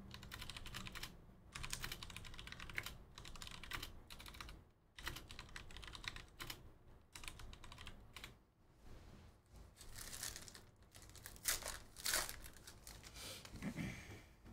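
Faint typing on a computer keyboard: quick runs of key clicks with short pauses between them.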